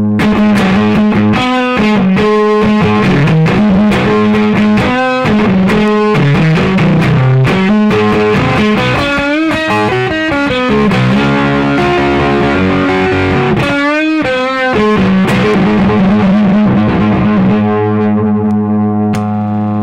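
Electric guitar with single-coil pickups played through a 1960s John Hornby Skewes Zonk Machine fuzz pedal, working again after its repair: fuzz-distorted chords and riffs, with pitch bends about fourteen seconds in and a chord left ringing near the end.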